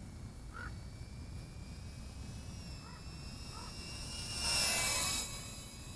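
Gofly Scorpion 80 brushless micro whoop's 1103 motors whining thinly in the distance, then swelling into a hissing whoosh about four and a half seconds in as the drone flies past close by, the whine dropping slightly in pitch as it passes.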